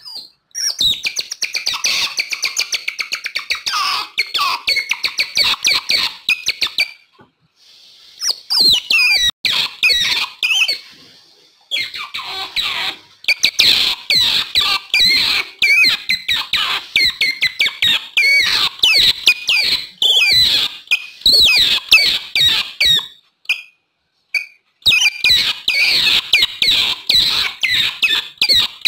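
Otters chirping: rapid, high-pitched squeaky chirps, several a second, in runs broken by short pauses.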